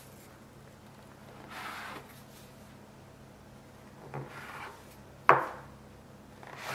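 Plastic dough scraper pressed down through a thin rolled dough round onto a floured wooden board, cutting slits around its edge. A few short scraping strokes, then one sharp knock of the scraper's edge on the wood a little past five seconds in.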